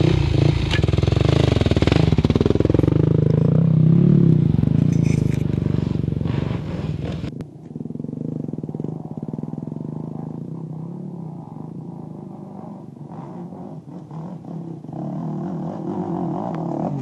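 Enduro dirt bike engine revving up and down under load on a rocky hill climb. About seven seconds in it cuts off abruptly and a quieter dirt bike engine takes over, getting louder near the end as the bike climbs closer.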